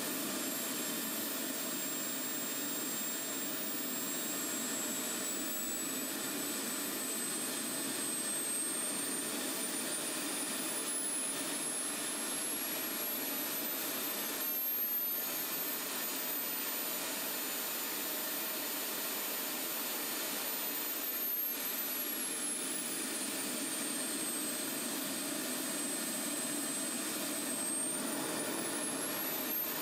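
Model jet turbine running on a test stand: a steady rushing noise with a high whine. The whine climbs to a higher pitch in the middle as the ECU's calibration run spins the turbine up, sinks back toward idle, and starts rising again near the end as the throttle opens.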